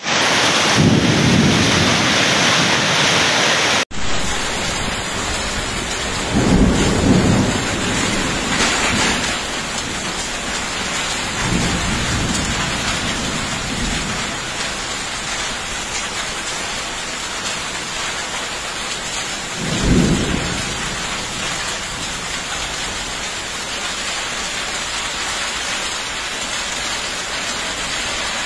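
Heavy rain pouring down in a violent storm, a loud steady rush. Deep rumbling swells rise out of it several times, strongest about 7 and 20 seconds in.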